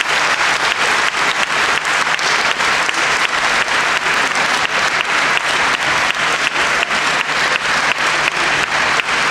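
Audience applauding steadily, sharp claps standing out at an even pace of about three a second.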